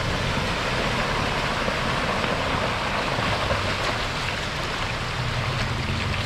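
Shallow creek water rushing and splashing steadily as a Toyota FJ Cruiser wades up the streambed past the camera, its engine running low underneath the water noise.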